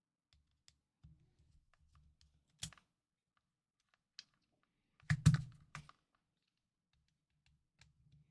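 Small sharp clicks and taps of a precision screwdriver and tiny screws being worked out of a Nintendo DSi XL's plastic shell, with a louder short clatter of clicks about five seconds in.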